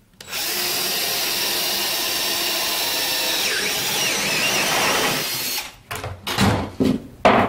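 Cordless drill running steadily with a step bit, boring a relief hole through half-inch MDF; its pitch wavers as the bit bites. It stops about five and a half seconds in, followed by several sharp knocks as the board is lifted and handled.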